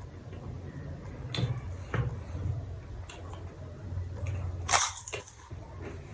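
Close-miked chewing and mouth sounds of a person eating, with a few short crunchy clicks and one sharp, loud click about five seconds in.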